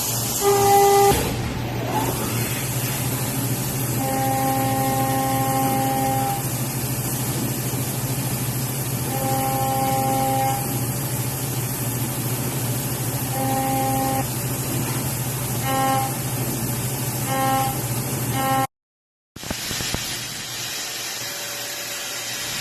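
Doosan DNM 4500 CNC vertical machining center running under power: a steady electrical hum with whining tones of one pitch that start and stop repeatedly as the motors run. The sound cuts out briefly near the end.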